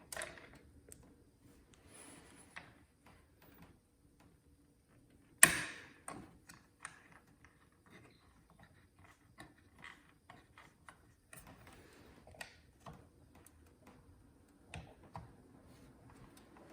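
Scattered small clicks and ticks of a CPU cooler being screwed down onto the processor with a screwdriver, with one sharp, loud click about five seconds in.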